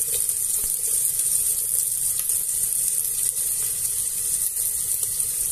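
Chopped onion and garlic sizzling steadily in hot olive oil in a pressure cooker, frying to brown.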